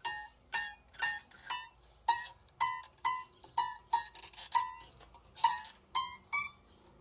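A tensioned scroll saw blade plucked by finger about twice a second while its tension knob is tightened, each pluck a short ringing twang. The note climbs slightly in pitch near the end as the blade gets tighter.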